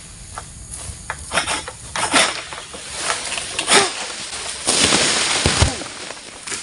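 Oil palm fronds being cut with a long-pole harvesting sickle (egrek): a run of sharp cracks and snaps, then a louder rustling crash about five seconds in.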